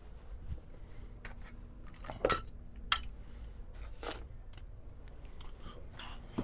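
A handful of light, sharp clicks and clinks from small hard objects being handled, spaced irregularly over a low steady hum.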